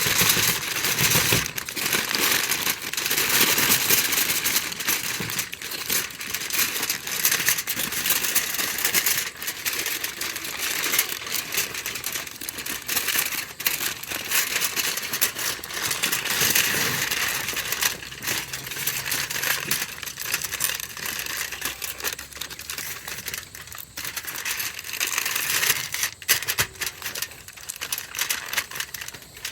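Heavy-duty aluminium foil crinkling and crackling as it is folded and crimped around a food packet, in an irregular run of small crackles throughout.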